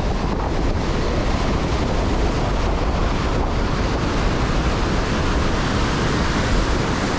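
Ocean surf breaking and washing up the sand, with wind buffeting the microphone as a steady low rumble.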